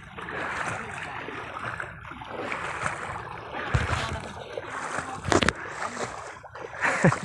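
Shallow sea water splashing and sloshing around wading legs and an outrigger boat's hull as the boat is pushed through the shallows, with two short thumps in the second half.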